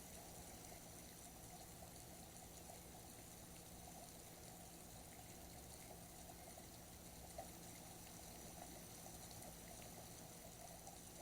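Near silence: faint, steady outdoor background noise, with one small tick about seven seconds in.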